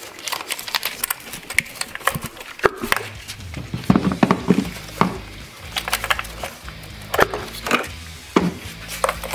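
Scattered sharp clicks and knocks of ignition coils being popped out of a Ford Gen 2 Coyote 5.0 V8's coil wells by hand. Background music with a low steady bass comes in about three seconds in.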